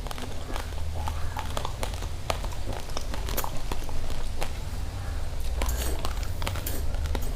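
Raw rice grains being crunched and chewed close to the microphone: a fast, irregular run of sharp, crackly crunches.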